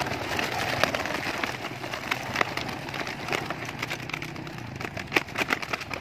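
Racing pigeons flapping up out of an open plastic carrier crate, their wings clapping in a run of sharp claps, thickest about five seconds in, over steady background noise.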